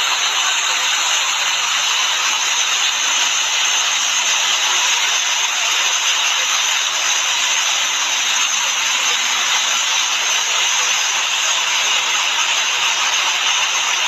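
Row of vertical fountain jets splashing back into a pool: a steady, unbroken rush of falling water.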